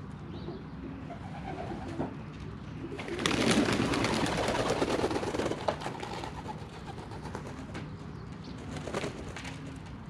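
Pigeons cooing, with a loud burst of splashing and wing-flapping from about three seconds in that lasts a couple of seconds as the birds bathe in a shallow water tray, and a shorter flurry near the end.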